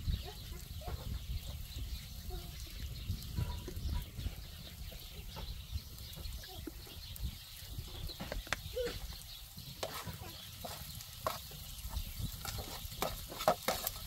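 Food sizzling in a frying pan over an open wood fire, with scattered clicks and scrapes of a spoon stirring in the pan, several louder ones near the end.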